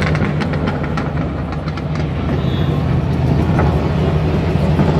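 DTM race car's 4.0-litre V8 running steadily with a rapid run of sharp exhaust crackles and pops in the first couple of seconds, which thin out afterwards. The crackles are afterfire in the exhaust.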